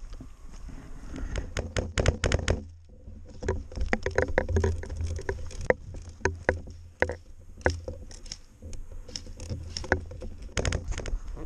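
A player's footsteps and gear rattling as they move fast across grass, heard as sharp irregular clicks and knocks, some in quick clusters, over a low rumble of wind and handling on a body-mounted camera.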